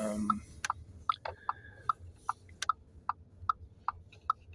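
Car turn-signal indicator ticking steadily, about two and a half clicks a second, with a faint low hum underneath inside the car cabin.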